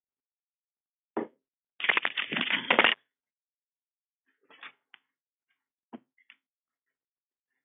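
Handling noises as a person gets up from a desk: a knock, about a second of crackly rustling and scraping, then a few scattered clicks and knocks.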